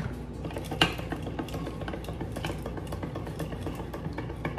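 Push-down spiral whisk (a semi-automatic plunger whisk) pumped up and down in a bowl of eggs and milk, giving a fast rattle of clicks against the bowl. A single sharp knock comes about a second in.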